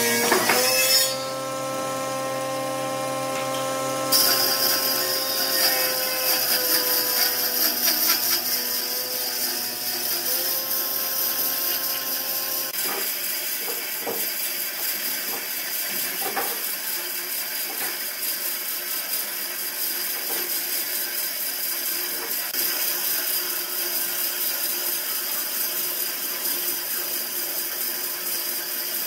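Bandsaw running and cutting lengthwise through a bark-covered log, a continuous high hiss of the blade in the wood over the motor's hum. The cut starts about four seconds in, where the sound gets louder and sharper.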